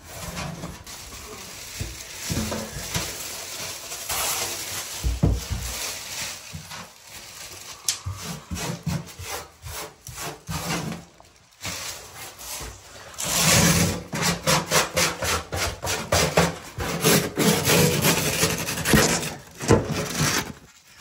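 Hand scraping of hardened caulking from a porcelain tub: irregular rasping scrapes, then a quick run of strokes, about three a second, in the last third.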